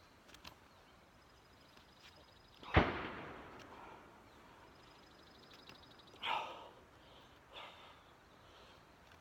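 A single sharp hit about three seconds in, the loudest sound, with a short ringing tail; two shorter, softer noises follow, near six seconds and again about a second later. Faint rapid high trills run in the background.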